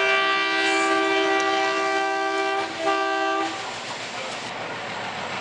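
Diesel locomotive horn sounding one long blast, a brief break, then a short second blast about three seconds in. The approaching train's running rumble on the track follows.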